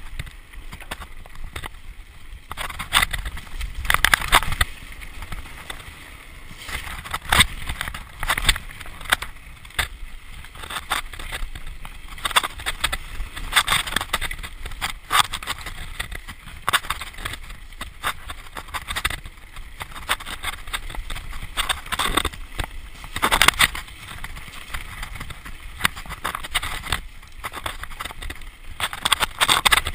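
A mountain bike ridden fast over rough dirt singletrack: tyres rolling on the trail, with many irregular knocks and rattles from the bike as it hits bumps, and wind on the microphone.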